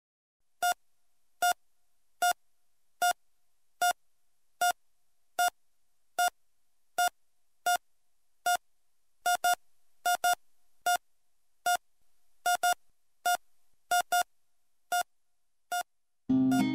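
Short electronic beeps of one pitch, a little more than one a second at a heartbeat-like pace, turning uneven with several quick double beeps in the second half and stopping about a second before the end. Acoustic guitar music starts just at the end.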